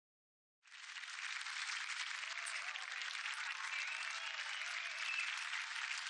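Studio audience applause from a televised political debate, heard as TV audio. It starts abruptly about half a second in and holds steady, thin and without bass.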